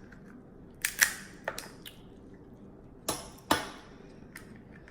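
Snow crab leg shells being snapped and cracked by hand: several sharp cracks in two groups, the loudest about a second in, and two more a little past the middle.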